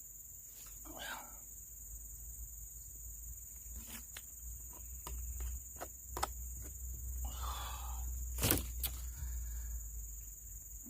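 Steady high-pitched chorus of crickets and other insects, with scattered snaps, rustles and light steps in the vegetation; a sharp snap about eight and a half seconds in is the loudest sound.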